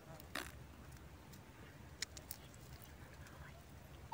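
Quiet background with a faint low rumble and a few soft clicks, one about half a second in and two more around two seconds in.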